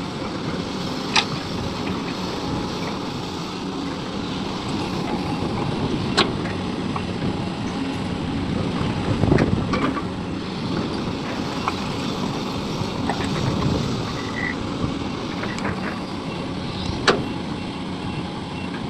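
Excavator engine running steadily, with three sharp knocks, the loudest near the end.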